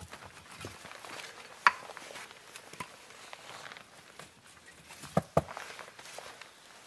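Snow crunching and clothing rustling as a person shifts about on their knees and handles a metal mug. A single sharp clink comes a little under two seconds in, and two quick knocks follow about five seconds in.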